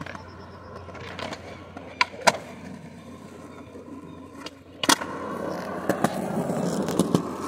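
Skateboard wheels rolling, with sharp clacks of the board hitting the ground several times, the loudest a little before five seconds in. The rolling grows louder after that.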